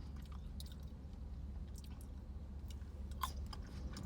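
Close-up chewing of a sauce-dipped chicken nugget: faint, soft, wet mouth clicks and squishes over a steady low hum.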